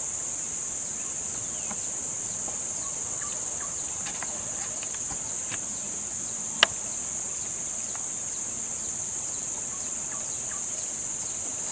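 Steady high-pitched drone of insects, with faint short chirps scattered through it and one sharp click about halfway through.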